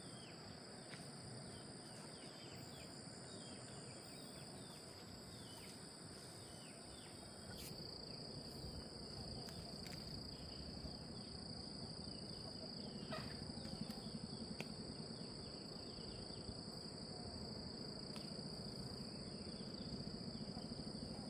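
A steady, high-pitched insect chorus trilling without a break, over a low background noise that gets a little louder about eight seconds in.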